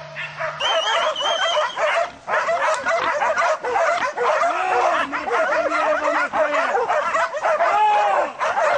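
A pack of hunting dogs barking and yelping excitedly, many voices overlapping without a break, starting about half a second in.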